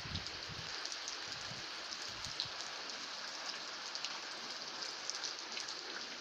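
Steady rainfall, a constant hiss of rain with scattered small ticks of individual drops landing.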